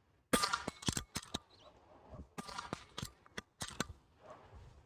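Sharp clicks and snaps from an AGN Vixen PCP air rifle's side-lever action being worked for rapid follow-up shots, in three quick groups.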